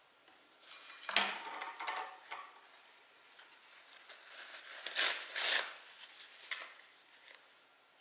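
Handling noises: scraping and rubbing with light clicks and clatter, in two clusters about a second in and around five seconds in, with smaller scrapes between.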